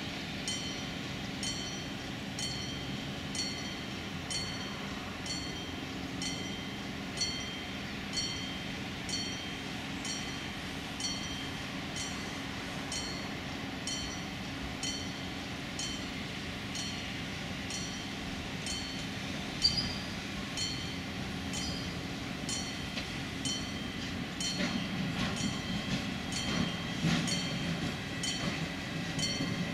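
Siemens Vectron electric locomotive approaching slowly, its steady hum joined by growing rumble and wheel clatter over the last few seconds. A regular high-pitched ding repeats about one and a half times a second throughout.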